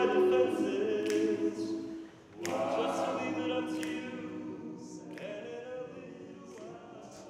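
Male a cappella group singing sustained chords in close harmony; the sound breaks off briefly about two seconds in, then a new chord comes in and slowly dies away.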